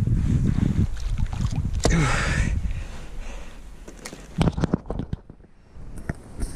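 Water sloshing and dripping as a landing net holding a wels catfish is lifted out of a lake, loudest in the first few seconds and then fading. A few sharp knocks and clicks come a little past the middle.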